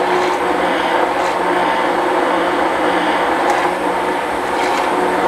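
Hand-held immersion blender running steadily in a tall beaker, blending raw eggs.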